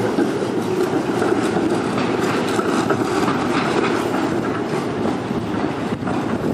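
Streetcars rolling through an intersection on steel rails, their wheels clattering over the track crossings, with car traffic mixed in.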